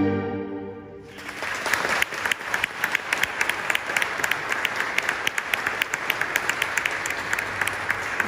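A folk string band's last chord on fiddles and double bass rings out and fades in the first second. About a second in, an audience breaks into steady applause that carries on.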